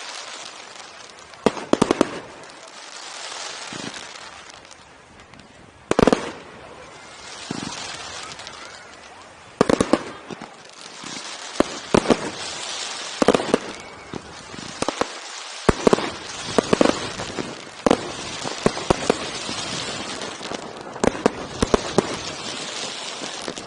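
Fireworks display: shells bursting in sharp bangs every few seconds, some in quick clusters of several, with a steady hiss in between.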